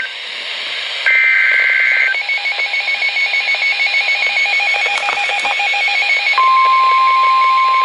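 NOAA Weather Radio EAS alert: a one-second warbling SAME header data burst about a second in, then a weather radio receiver's rapid, evenly repeating alarm beeps. About six and a half seconds in, the steady 1050 Hz NOAA warning alarm tone starts under the beeping.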